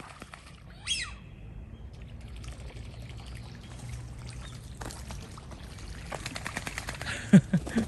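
Ducks flapping and splashing on the water, a busy pattering of quick small splashes. A short falling bird call comes about a second in, and a brief louder sound near the end.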